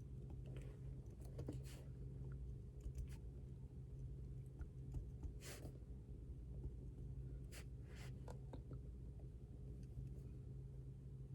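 Pen writing on paper: a few scattered strokes, each well under a second, over a steady low hum.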